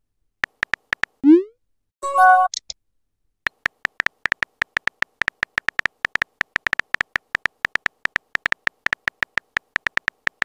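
Texting-app sound effects: a few keyboard tap clicks, a rising whoosh as a message is sent, and a short pitched chime as it appears. Then a fast, even run of key-tap clicks, several a second, as the next message is typed.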